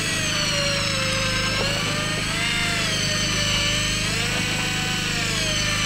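Electric fishing reel's motor whining as it winds line, its pitch slowly rising and falling, over a steady low hum.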